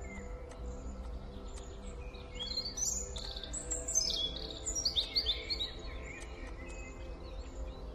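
Bird chirping: a quick run of short, high notes between about two and six seconds in, over a faint steady hum.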